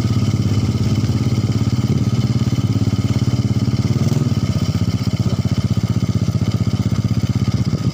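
Small motorcycle engine running steadily while riding at low, even speed, with a dense low firing pulse.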